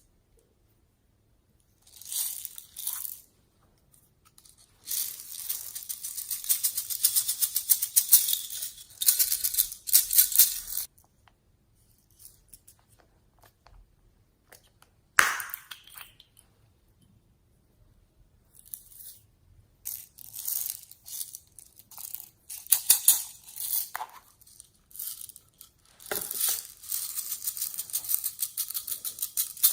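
Slime being squeezed and worked by hand, in bursts of fast crackling clicks and pops with silent pauses between, and a short squelching squeak about halfway through.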